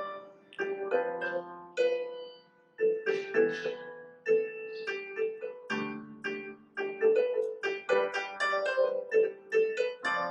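Piano music: a melody of single struck notes that ring and fade, coming faster from about seven seconds in.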